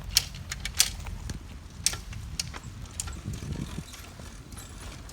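Tandem bicycle clicking and rattling, with a few sharp, irregularly spaced clicks over a low rumble.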